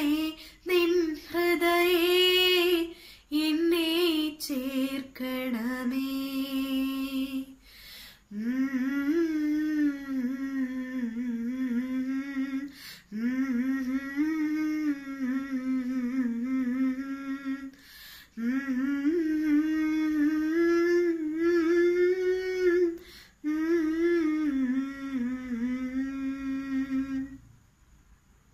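A woman humming the melody of a Malayalam Marian hymn, unaccompanied and with her mouth closed. She goes in phrases of a few seconds with short breaks between them, and stops near the end.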